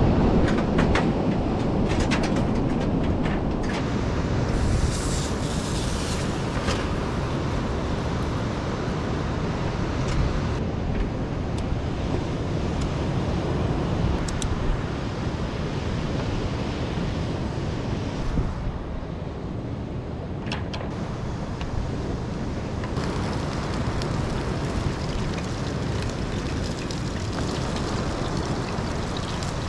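Steady wind buffeting the microphone, a continuous low rumble mixed with a rushing roar like surf.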